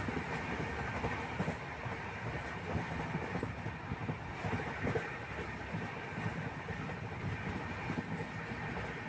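Steady, uneven rumbling noise, heaviest in the low range, with no clear rhythm.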